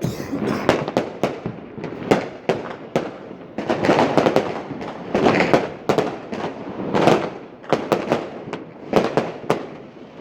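New Year fireworks going off: many bangs and crackles in quick, irregular succession, with louder clusters every second or two.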